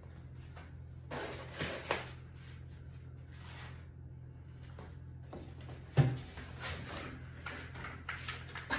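Packing being handled in a plywood shipping crate as a metal laser column is lifted out: brief rustling about a second in, one sharp knock about six seconds in, then scattered small clatters. A steady low hum runs underneath.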